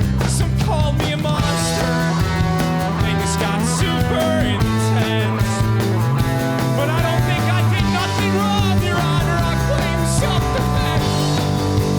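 Rock band playing a song live, with guitars over drums and several cymbal crashes.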